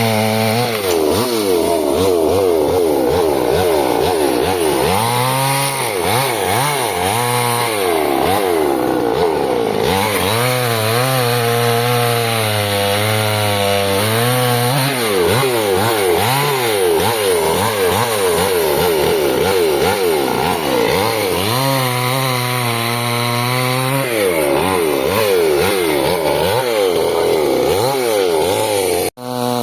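Chainsaw running at high revs through a large log. Its engine pitch wavers up and down as the chain bites into the wood, with a few stretches of steady, even pitch. The sound cuts out abruptly for an instant near the end.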